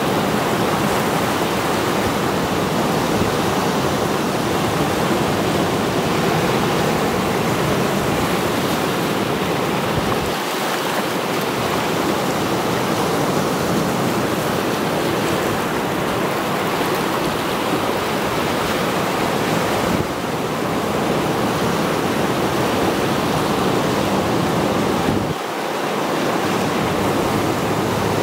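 Sea surf: waves breaking and foam washing in over a rocky shore, a steady, continuous wash of water noise.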